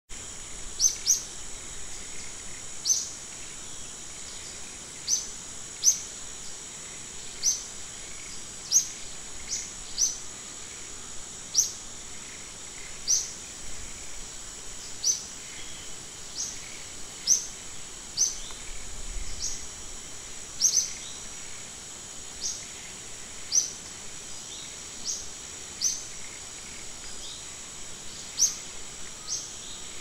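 Outdoor ambience of a steady, high insect drone with a bird repeating a short, high, rising chirp every second or two.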